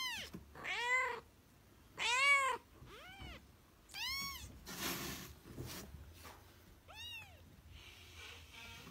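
A young kitten mewing: about six short, high-pitched mews, each rising and then falling in pitch, at uneven gaps. There are a couple of soft rustles about five seconds in.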